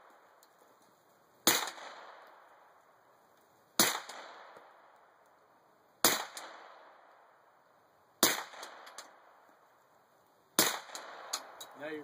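Five suppressed shots from a Glock 17 9mm pistol with a silencer on a threaded barrel, evenly spaced about two seconds apart. Each is a sharp pop with a short echoing tail. These are supersonic 124-grain rounds, so each shot still makes a louder pop through the can.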